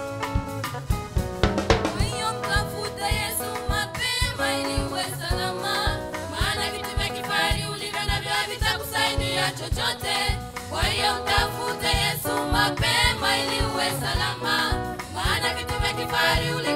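Live gospel band playing an instrumental passage: a drum kit with snare and cymbals keeps a steady beat under melody instruments.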